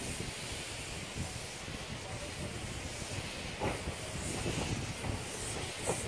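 Narrow-gauge steam locomotive moving slowly, with a steady hiss of steam over a low rumble and a couple of short knocks near the end.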